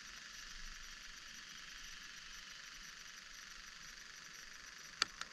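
Steady hiss of light rain falling, with two sharp ticks about a quarter second apart near the end.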